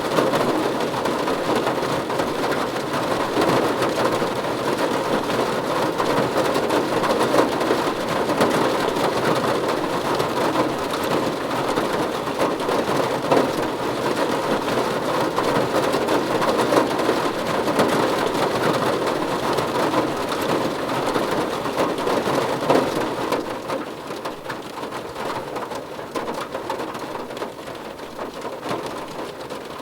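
Heavy rain falling on a car's roof and windows, heard from inside the car: a dense, steady patter of drops that eases a little about twenty-three seconds in.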